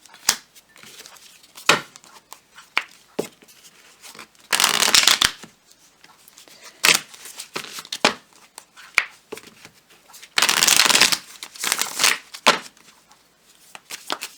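A deck of tarot cards being shuffled and handled: scattered sharp taps and card snaps, with two longer stretches of rapid flicking, about four and a half and ten and a half seconds in.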